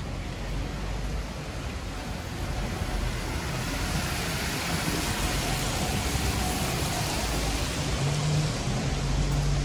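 Rain-soaked street noise: a steady hiss of rain and wet tarmac, swelling through the middle as a taxi's tyres swish past on the wet road, with a low engine hum near the end.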